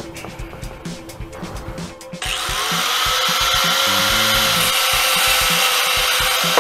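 A small handheld power tool starts about two seconds in and runs steadily as it cuts into PVC pipe, its pitch sagging slightly under the load. Background music with a steady beat plays underneath.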